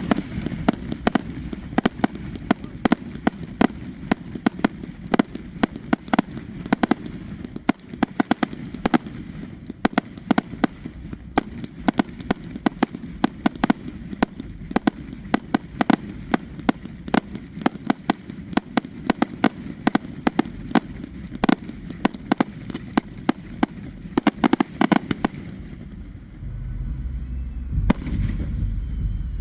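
Fireworks crackling: a dense run of rapid sharp pops that stops about 26 seconds in, leaving a low rumble.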